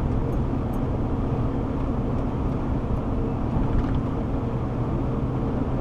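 Car driving along, with a steady drone of tyre and engine noise.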